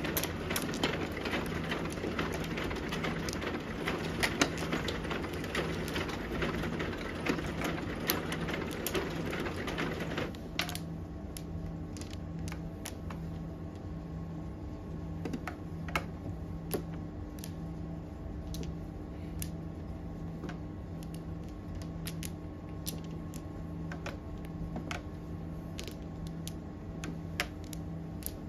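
Mahjong tiles clicking on an automatic mahjong table as players draw and discard. A dense, continuous clatter fills the first ten seconds or so and stops abruptly, leaving single sharp tile clicks about once a second over a steady low hum.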